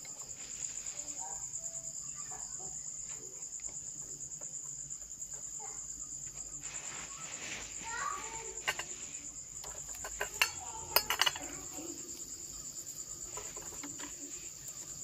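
Steady high-pitched chirring of insects, with a few sharp clicks from bamboo firewood being handled in a wood cooking fire, the loudest about ten to eleven seconds in.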